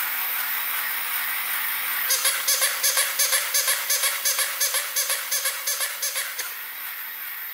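Walking plush bunny toy: its small gear motor whirs steadily as it walks. From about two seconds in, its sound chip plays a rapid electronic giggle of about five pulses a second, fading over roughly four seconds.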